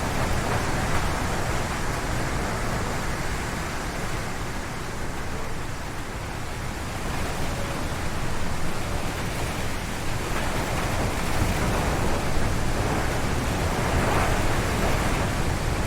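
Strong wind gusting through forest trees, a steady rushing with a deep rumble. It eases a little about five seconds in, then builds again in gusts toward the end.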